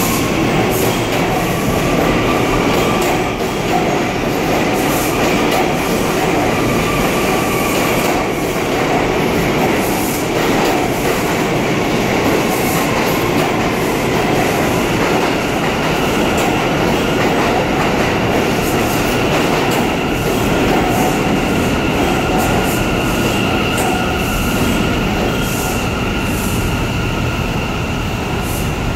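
R179 subway train pulling into an underground station and slowing to a stop. Its cars pass close by with a steady, loud rumble of wheels on rail, scattered clicks, and thin high whining tones.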